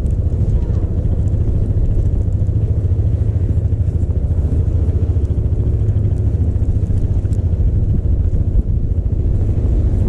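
Wind buffeting the microphone in a blizzard: a loud, steady low rumble.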